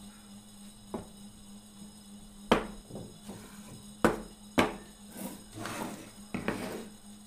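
Pine box pieces set down and knocked on a tabletop: a light tap about a second in, then three sharp wooden knocks, followed by a board scraped across the table and one more knock with a short scrape.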